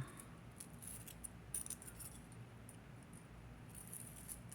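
Faint clinking and jingling of small metal necklace chains being handled, in scattered light ticks with a small cluster about a second and a half in and again near the end.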